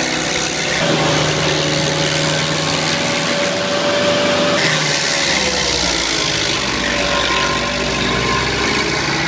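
Bandit 2650 stump grinder running under load, its engine and cutting wheel grinding into a stump, with a steady whine that sags and recovers as the wheel bites. The sound changes abruptly about a second in and again about halfway through.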